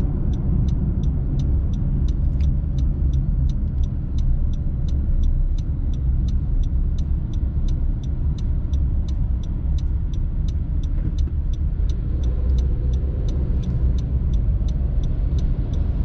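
Steady road and engine rumble inside a car's cabin in slow highway traffic. A turn signal ticks evenly over it, about three times a second.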